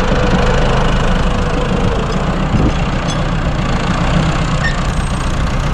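Farm tractor engine running steadily at a low, even rumble.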